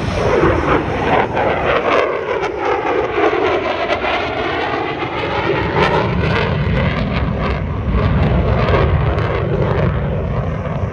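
Military fighter jet flying past, its engine a loud, steady roar. The tone sweeps down and then back up as the jet passes, and it is loudest near the end.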